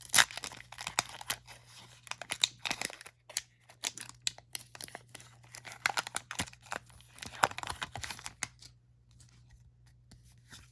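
A Pokémon booster pack's foil wrapper being torn open and crinkled, a dense run of irregular tearing and crackling that dies down about two seconds before the end.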